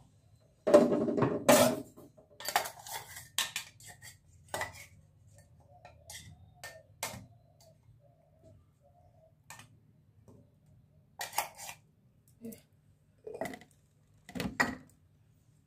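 Stainless-steel mixer-grinder jar, lid and spoon knocking and clinking against each other and a steel plate as ground masala is tipped and tapped out onto raw chicken. The loudest ringing knocks come about a second in, followed by scattered lighter clinks and scrapes and a few more knocks near the end.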